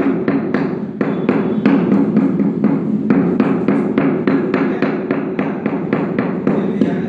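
A 600 mm vitrified floor tile being tapped down into its mortar bed with a small mallet to seat and level it: a steady run of dull knocks, about three or four a second.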